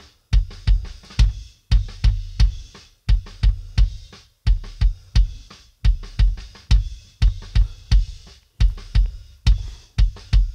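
Rock kick drum track playing back on its own: a quick pattern of hard, deep hits, several of them in close pairs, each with a sharp beater click on top. A narrow EQ notch is cutting out a resonance that had been building up in the drum's low mids.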